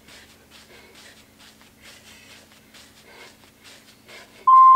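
Faint rhythmic huffs and landings from jumping jacks, about two to three a second, over a low steady hum. Near the end, a loud steady electronic beep from an interval timer marks the end of a 30-second work interval.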